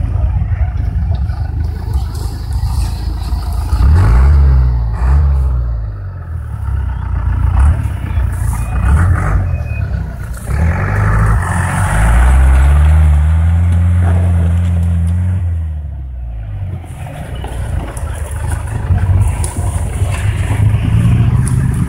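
Engine of an off-road Land Cruiser-type 4x4 revving in repeated bursts as it climbs a steep dirt bank. The longest rev, about halfway through, rises, holds for a few seconds and falls away.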